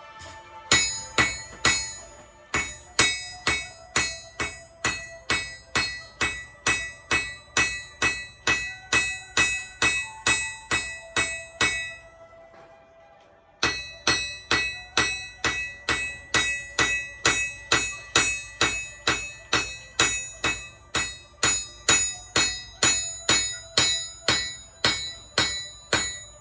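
Hammer blows on hot rebar against an anvil, forging rows of beading: steady strikes about two to three a second, each with a metallic ring. The blows stop for about a second and a half near the middle, then go on at the same pace.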